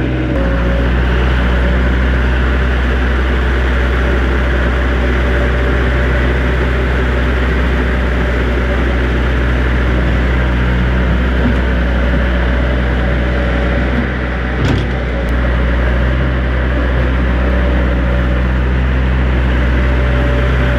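An engine or motor running at a steady speed, with a low, even hum, and a single short knock about 15 seconds in.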